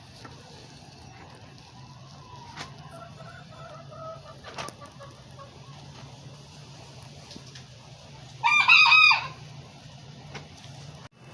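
A rooster crows once, loud and short, about eight seconds in, over a low steady hum.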